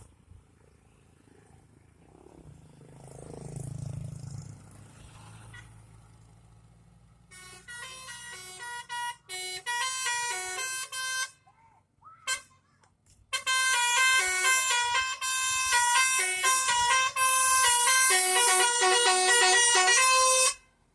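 Bus 'telolet' musical horn, a multi-tone horn playing a quick melody of stepping notes. It starts about seven seconds in with short phrases and breaks off briefly. It then plays a loud, long run of notes for about seven seconds before cutting off. Earlier, a vehicle's low rumble rises and fades.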